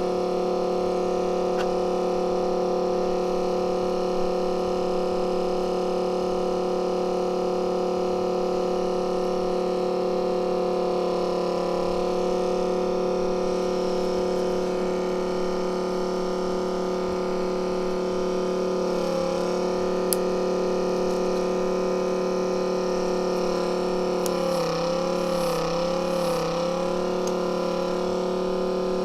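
Steady electrical machine hum with a pitched drone, wavering briefly in pitch a few times near the end.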